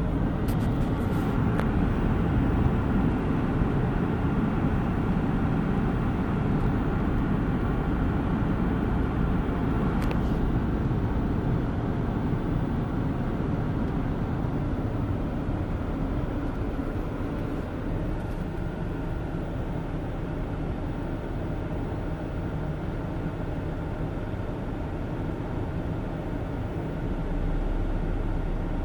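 A vehicle's engine and road noise running steadily, low and continuous, easing off a little partway through, with a few faint ticks.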